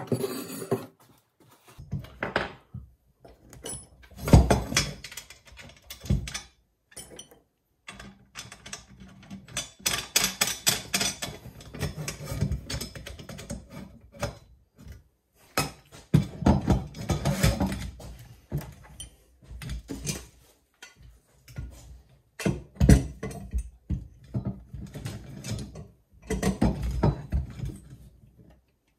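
Aluminium frame pieces, bolts and nuts of a chainsaw mill kit being handled and fitted together on a wooden workbench: irregular clinks, knocks and rattles in clusters with short pauses between.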